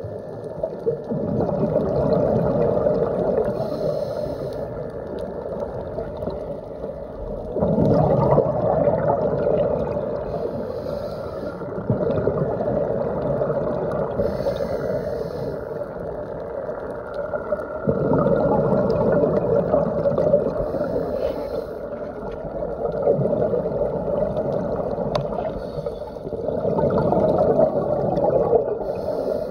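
Scuba regulator breathing heard underwater through a phone's dive case: muffled bubbling of exhaled air that surges about every five to six seconds, with a faint hiss between surges.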